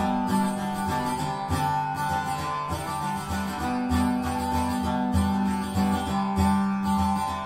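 Background music with sustained notes and a pulsing bass line.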